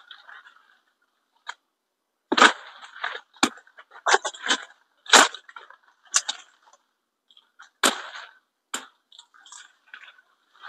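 Coffee tree branches being pruned by hand: a run of irregular sharp snaps and cracks of twigs, starting about two seconds in, with leaves rustling between them.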